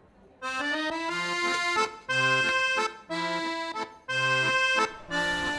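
Accordion playing a lively tune in short phrases broken by brief gaps, starting about half a second in.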